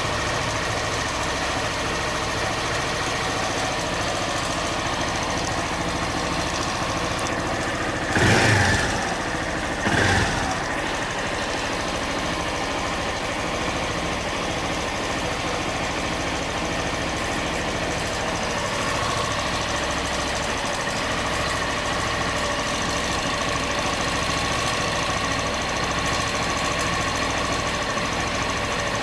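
Honda Bros 160 motorcycle's single-cylinder engine idling steadily, with two brief louder bursts about 8 and 10 seconds in. The owner hears an abnormal engine noise that four trips to the warranty shop have not cured.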